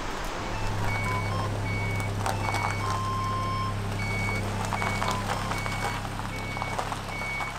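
Mazda Bongo van reversing with its engine running, its reversing alarm giving short, evenly spaced beeps over a steady low engine hum.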